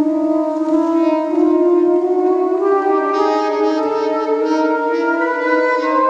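Two soprano saxophones improvising in a church, playing long held notes together: one note stays steady while the other slowly slides upward in pitch.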